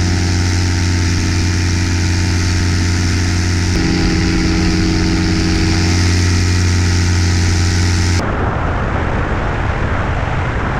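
Paramotor engine and propeller running at steady cruise, a loud even drone with a hum. About eight seconds in it cuts abruptly to an even rushing noise in which the engine's hum is no longer distinct.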